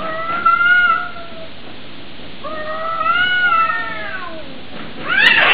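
Domestic cats yowling at each other in a territorial standoff. Two long, drawn-out, wavering yowls, the second rising and then falling, then a louder, harsher cry starting near the end.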